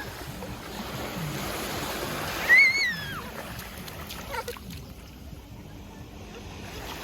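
Waves washing up the beach, swelling to a peak about three seconds in, with a child's brief high squeal that falls in pitch at the peak of the wash.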